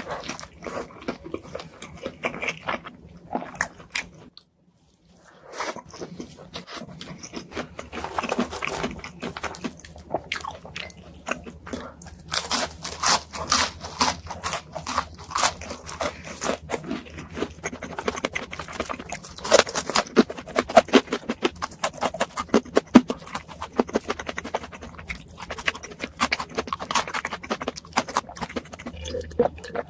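Close-miked eating sounds: rapid chewing, biting and crunching of food, with a short silent gap about four seconds in.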